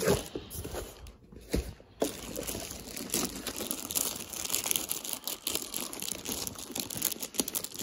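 Clear plastic bag crinkling and crackling as the printer wrapped in it is lifted out of its box and handled, a dense run of small crackles that eases off briefly about a second in and then picks up again.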